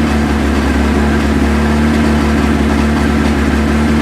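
Vauxhall/Opel Kadett D estate's petrol engine idling steadily with an even hum, running on its first start after being revived.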